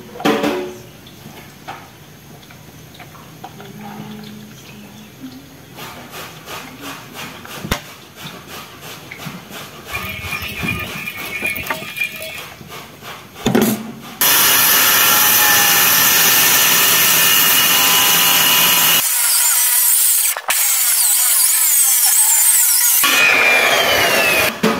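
Handheld circular saw ripping the rough, chainsaw-cut edge off a wooden plank. It comes in loud and steady a little past halfway and runs on with one brief break near the end.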